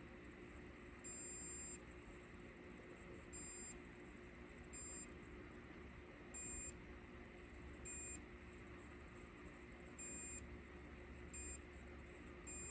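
Short high-pitched electronic beeps, about eight at irregular intervals, each lasting from a brief blip to about half a second, as the freshly reassembled push-button switch is tested. A faint steady hum runs underneath.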